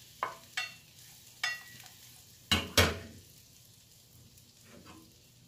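A wooden spatula stirs pav bhaji masala frying in butter in a small stainless steel pan. It knocks sharply against the pan about five times in the first three seconds, over a faint sizzle.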